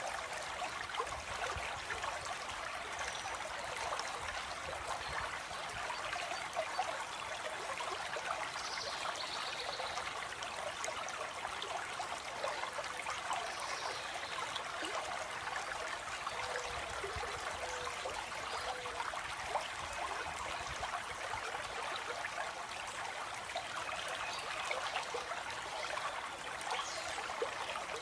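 A shallow stream flowing and trickling steadily, with a few faint bird chirps now and then.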